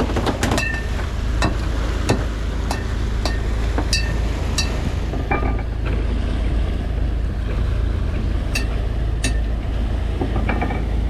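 Fishing boat's engine running steadily underway, with wind and water noise on the microphone. A dozen or so sharp clicks, some with a short ring, are scattered through it.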